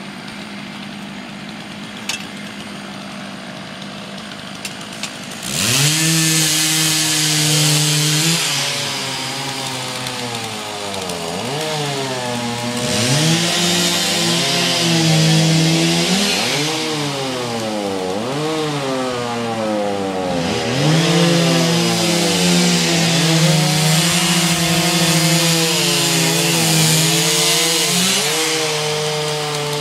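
Two-stroke chainsaw idling, then revved up about five seconds in and cutting into a tulip poplar log, the engine pitch dipping under load and rising again between cuts.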